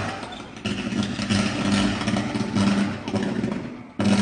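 Electrical arcing inside a street electricity meter box: a loud, pulsing buzz with dense crackling, with a sudden break near the end.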